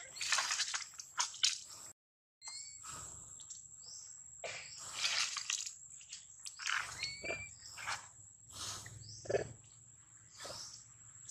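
A macaque chewing and crunching food close to the microphone: irregular crackling bites, with a brief dropout in the sound about two seconds in. A steady high-pitched whine runs underneath, and a few short rising chirps are heard.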